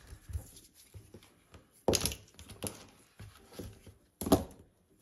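Tools being handled on a rubber repair-bench mat: scattered small clicks and rustles, with a sharp knock about two seconds in and the loudest clatter near the end.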